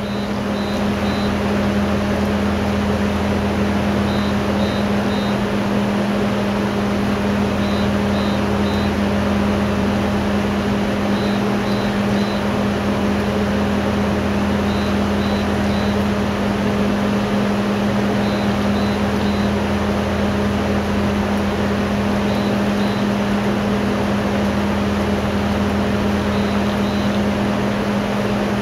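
A SmartLipo laser liposuction unit running with a steady machine hum. It sounds a group of three short high beeps about every three and a half seconds while the laser fiber is worked through the arm.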